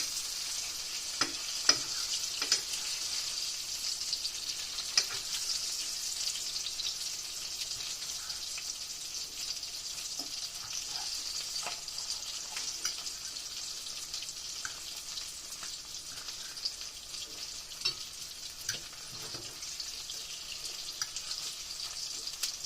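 Green tomato slices coated in flour and cornmeal frying in a pan: a steady sizzle with a few sharp clicks and crackles scattered through it.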